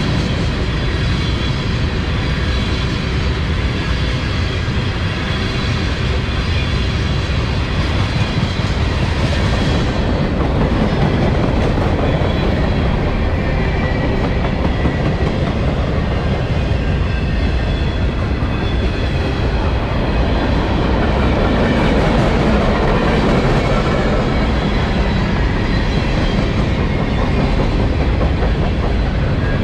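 Cars of a CSX manifest freight train rolling past, a steady loud rumble of steel wheels on the rails.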